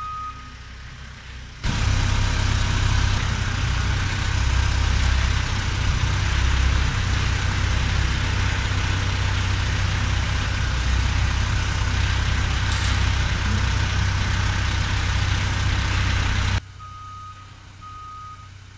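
Caterpillar telehandler's diesel engine running steadily with a heavy low rumble as it lifts a load on its forks. Its warning alarm beeps in an even series near the end, and once or twice at the very start.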